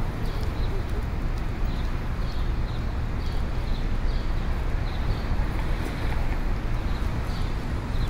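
City street ambience: a steady low traffic rumble with a faint, regular tapping about twice a second.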